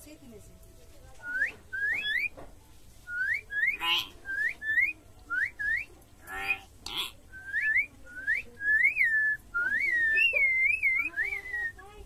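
Clear whistling: short upward-sliding whistles, often in quick pairs, repeated many times, changing after about eight seconds to whistles that rise and fall. Two short harsh noises cut in, about four seconds in and again about six and a half seconds in.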